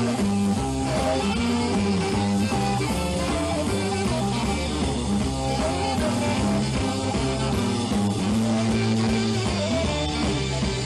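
Live blues-rock instrumental: electric guitar playing lead lines with held notes over a backing band.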